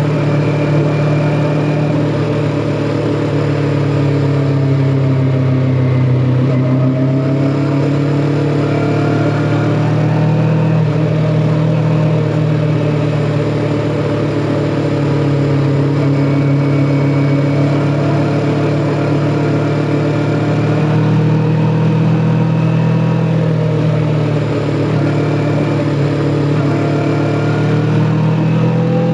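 Kawasaki Ninja 400's parallel-twin engine running at a steady cruise, its pitch dipping and climbing gently a few times as the throttle eases and opens, over a steady rush of noise.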